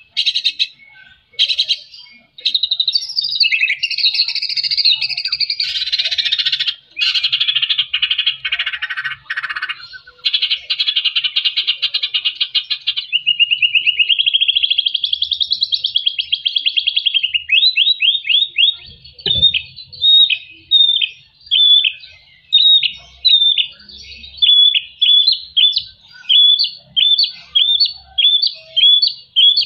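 White-rumped shama (murai batu) singing loudly: harsh, buzzy rattling phrases in the first half, then a warbled phrase, then a long run of short, sharp downslurred whistled notes repeated close together.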